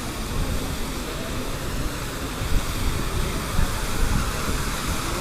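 Steady city street noise: a low rumble of traffic with wind buffeting the microphone.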